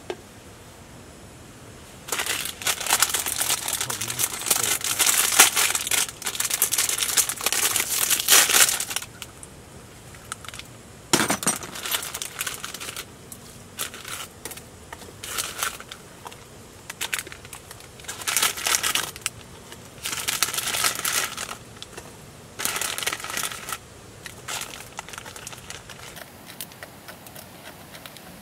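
Plastic instant-ramyeon packets crinkling and being torn open: several seconds of continuous rustling, then shorter bursts of crinkling. A single sharp knock about eleven seconds in.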